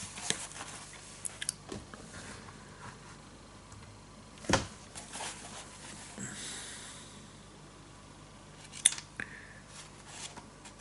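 Faint handling noises in a quiet small room: scattered light clicks, a louder knock about four and a half seconds in, a brief rustle in the middle and a sharp click near the end, over a low steady hum.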